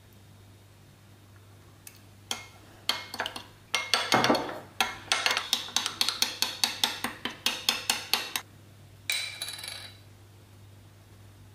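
Metal teaspoon stirring sauce in a small ceramic dish, clinking and scraping against the sides. A few taps about two seconds in lead to a quick run of clinks, about four a second, with a shorter burst near the end.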